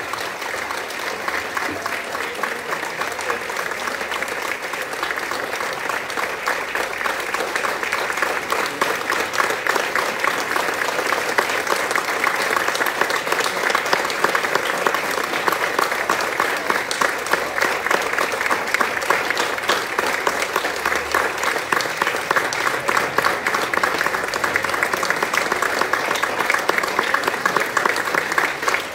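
Audience applauding: a long, steady round of clapping that grows slightly louder through the second half, with single nearby claps standing out near the end.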